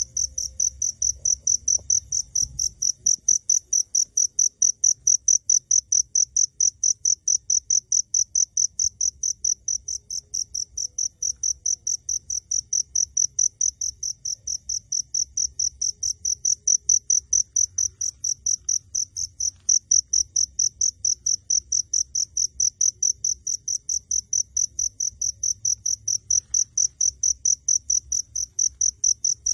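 A cricket chirping close by: a steady, high-pitched, even rhythm of about three to four chirps a second.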